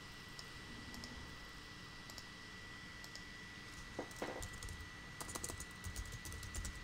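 Computer keyboard typing, faint: a few clicks about four seconds in, then a quick run of key clicks near the end as a short command is typed.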